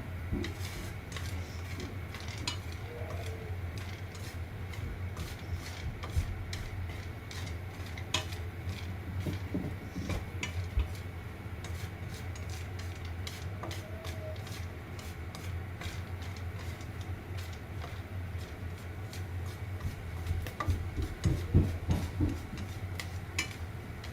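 Kitchen handling sounds: irregular light clinks and knocks of dishes and utensils, with a cluster of louder knocks near the end, over a steady low hum.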